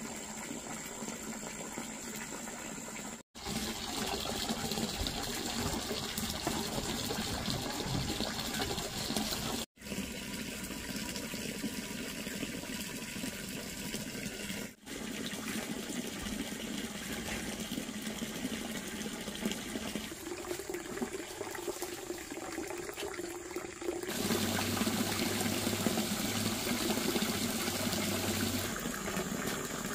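Water from a pipe pouring steadily into a concrete pond, a continuous splashing hiss that briefly cuts out three times and changes in tone a couple of times.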